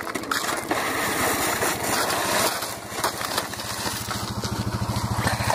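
An engine idling: a steady, evenly pulsing low rumble that grows louder over the second half.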